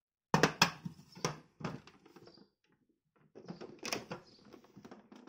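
Hard plastic knocks and rattling as the jar and lid parts of a mixer grinder are handled: a run of sharp knocks just after the start, then a second run of knocks and clatter about three seconds later.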